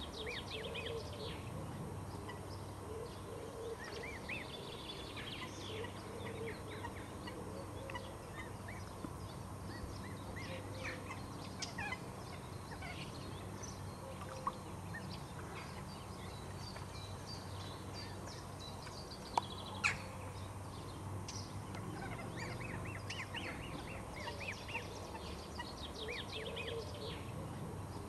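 Mallard ducklings peeping: runs of quick, high chirps repeated throughout over a steady low background hum. Two sharp clicks come about two-thirds of the way through.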